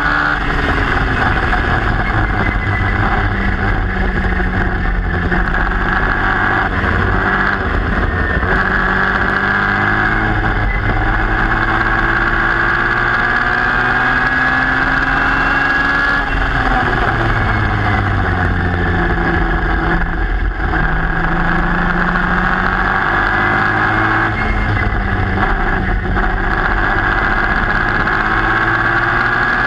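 Formula Junior single-seater's engine heard onboard at racing speed, its pitch climbing through the gears with breaks at each upshift. About halfway through the pitch falls away as it brakes and shifts down, then climbs again through the gears.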